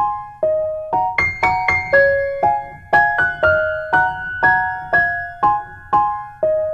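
Background music: a gentle solo piano melody with single notes and small chords struck about twice a second, each ringing and fading.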